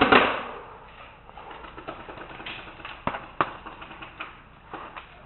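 Paintball marker firing a rapid string of shots that stops just after the start, followed by a few single sharp pops spaced over the next few seconds.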